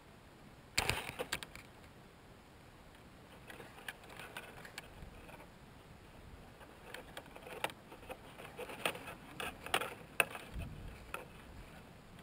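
Dry rustling and scratchy clicks of an adult Cape Rockjumper moving about its grass-lined nest among rocks: a quick cluster of sharp clicks about a second in, then scattered softer clicks and rustles through most of the rest.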